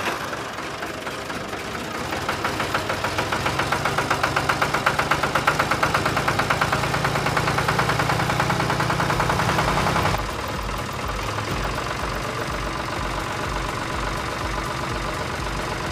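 Tractor engine running with a steady knocking beat, growing louder over the first few seconds, then dropping suddenly to a quieter, duller idle about ten seconds in.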